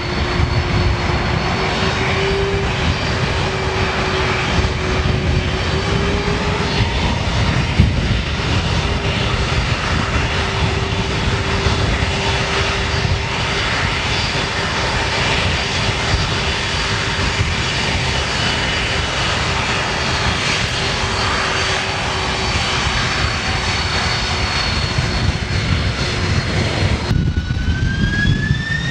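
Jet airliner engines running with a loud, steady roar and high whine. About 27 seconds in the sound cuts abruptly to another shot, where a whine rises in pitch.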